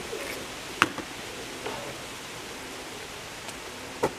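Sharp clicks and knocks of a fishing magnet and the find stuck to it as it is hauled up by its rope and handled, the loudest a little under a second in and another near the end, over a steady outdoor hiss.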